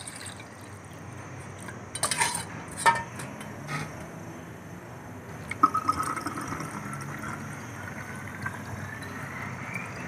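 Water poured from one steel bowl into another, with a few sharp metal clinks about two to four seconds in. Then liquid poured from the steel bowl into a plastic spray bottle, the sound of the pour rising steadily in pitch as the bottle fills.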